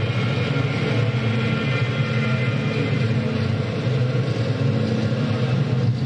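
Live electronic noise music played on synthesizers and effects gear: a dense, steady low drone, with a layer of high, shrill tones coming in at the start.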